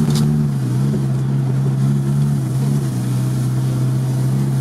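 Off-road 4x4's engine running steadily as the vehicle drives, heard from inside the cab: a steady drone that drops slightly in pitch within the first second, then holds even.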